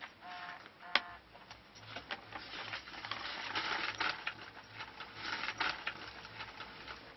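Paper crinkling and rustling as a folded slip is taken out and opened, in a dense crackle over several seconds. A sharp ringing clink of a steel utensil comes about a second in.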